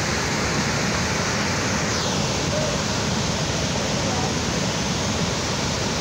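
Waterfall pouring over a concrete weir into a fast river: a steady, loud rush of white water.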